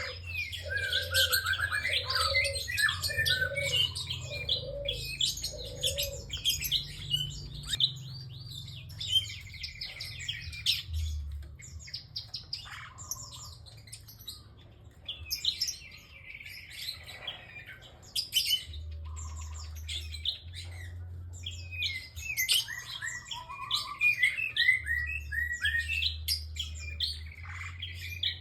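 Prinia (prenjak) singing vigorously: rapid, high chirping and trilling phrases broken by short pauses. Five low, evenly spaced notes sound under the song in the first six seconds.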